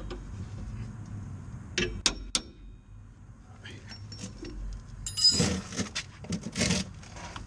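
Metal tool and brake hardware clinking while a rear brake caliper is being unbolted with a wrench: a few sharp metallic clinks about two seconds in, then two rattling, scraping clatters later on.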